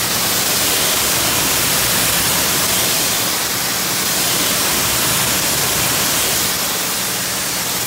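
Pressure washer wand spraying a fan jet of water onto a car's painted door panels to rinse them: a loud, steady hiss.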